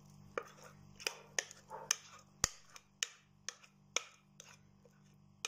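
Sharp, irregular clicks and knocks, two or three a second, of a utensil scraping and tapping against a mixing bowl as thick cake batter is scraped out into a glass baking dish.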